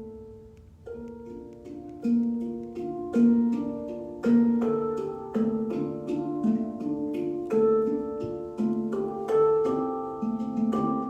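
Music of plucked or struck melodic notes, a slow, gentle melody with each note ringing on.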